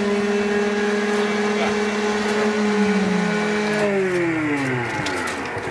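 Il-14T's left Shvetsov ASh-82T fourteen-cylinder radial engine running steadily on a ground run, then shut down: about four seconds in, its pitch falls and it winds down to a stop.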